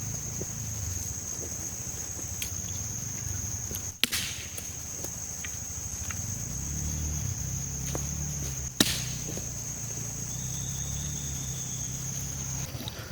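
Steady high-pitched insect trill, with a low rumble underneath and two sharp knocks, about four seconds apart, the second the loudest.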